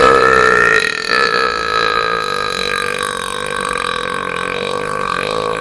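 One long, deliberate belch from a man, produced on command, held for over five seconds with a slight drop in pitch about a second in.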